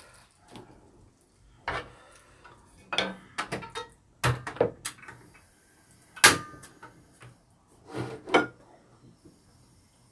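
Eating utensils clicking and knocking against dishes in a string of separate short taps, the loudest about six seconds in with a brief metallic ring.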